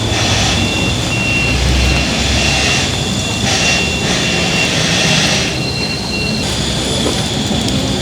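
Steady, loud rushing and rumbling of a passing vehicle, with a thin high whine that cuts in and out.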